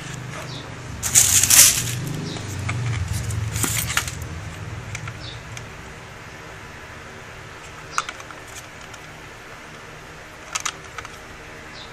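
Handling noise while unboxing a spring airsoft pistol: a loud burst of rustling about a second in, more rustling over the next few seconds, then a few sharp light clicks and taps, two in quick succession near the end.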